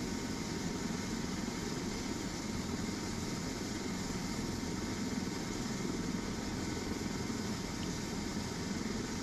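Air-ambulance helicopter's turbine engines and rotors running at ground idle during shutdown: a steady rumble with a faint whine, muffled through the car windshield.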